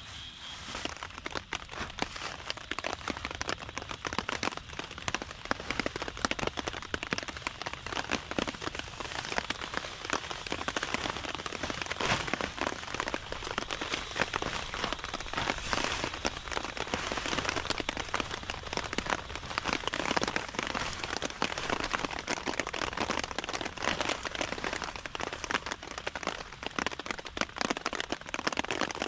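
Heavy rain falling steadily, a dense stream of individual drops striking a surface.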